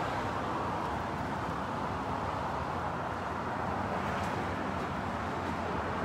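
Steady low rumble and hiss of background noise, even in level throughout, with no distinct events.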